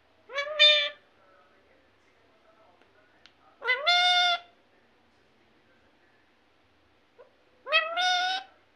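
Indian ringneck parakeet calling three times, each a short call that rises quickly in pitch and then holds, a few seconds apart.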